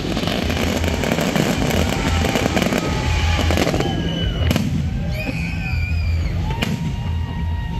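Fireworks display: a dense crackling of many small reports, then two sharp bangs about two seconds apart. Whistling tones glide up and down in pitch through the second half.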